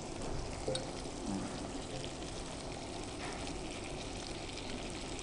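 Chilli-and-curd gravy sizzling steadily in a nonstick kadai as fried fish pieces are slid in from a plate.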